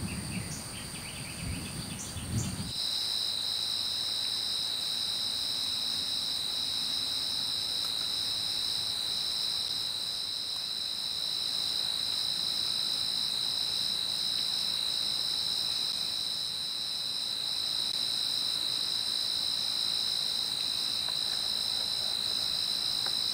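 Crickets trilling steadily in a high, unbroken chorus of several pitches, with a louder trill coming in about three seconds in.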